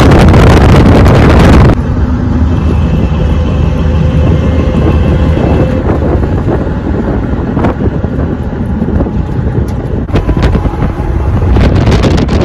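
Wind buffeting the microphone and road rumble from a moving pickup truck, very loud at first, then dropping suddenly about two seconds in to a steadier, quieter rumble with a few small clicks, rising again near the end.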